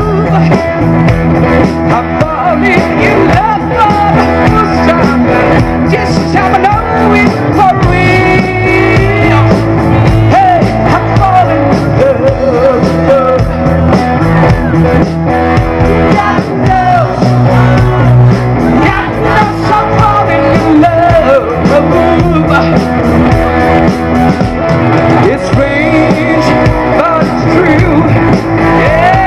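Live rock band playing through a PA: electric guitars, bass guitar and drum kit, with a man singing into a microphone.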